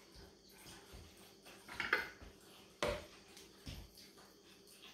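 A few light clicks and knocks of kitchenware being handled, the sharpest about two, three and nearly four seconds in, as half an orange is squeezed in a hand-held citrus press over a metal cocktail shaker.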